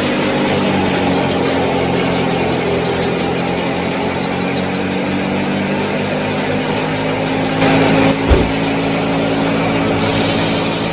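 Small electric motor of a homemade miniature thresher running, a steady hum with several held tones. A short thump about eight seconds in.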